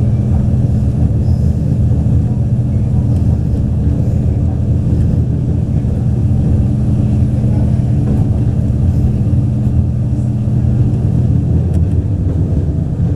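Taiwan Railways DR3000 diesel multiple unit under way: a steady low diesel engine hum over rumbling running noise, with the engine note shifting slightly about eleven seconds in.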